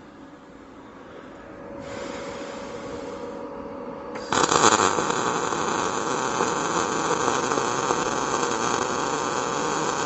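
MIG welding arc from a Yeswelder 205DS-B laying a bead: a short stretch of hiss about two seconds in, then a loud, steady crackling arc starting about four seconds in.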